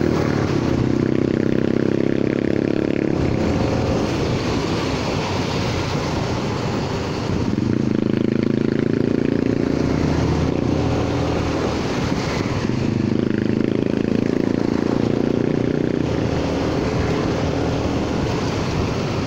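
Honda Forza 300 scooter's single-cylinder engine running under way, its note swelling with the throttle at the start, again about eight seconds in and again around thirteen seconds, easing off in between. A steady rush of wind and wet-road noise runs underneath.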